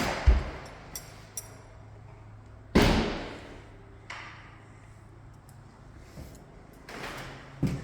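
A few sharp knocks and thuds, the loudest about three seconds in with a ringing tail.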